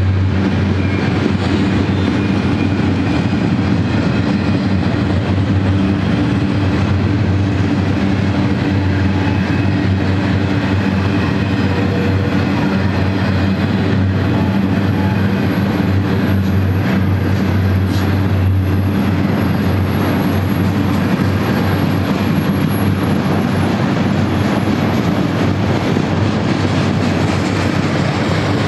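Double-stack intermodal freight cars rolling past, a loud, steady rumble of steel wheels on rail with some clickety-clack. A thin, faint high whine joins about halfway through and fades out near the end.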